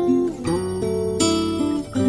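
Background music: an acoustic guitar playing plucked notes, a new note or chord every half second or so.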